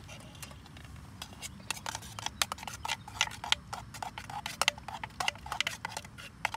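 A spoon clicking and scraping quickly and irregularly against the inside of a metal canteen cup as a thick carbonara sauce is stirred, the clicks growing busier after about a second and a half.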